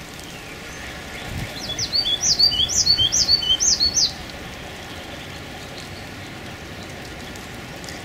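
A songbird singing a short run of quick, repeated high chirping notes for about two and a half seconds, starting about a second and a half in, over a steady outdoor hiss.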